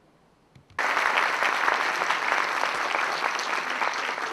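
Audience applauding, starting suddenly just under a second in and going on as loud, dense clapping.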